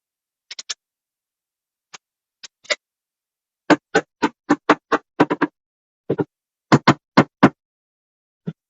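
Hammer blows on wood: a few light taps, then a quick run of strong strikes at about three a second through the middle, and one last knock near the end.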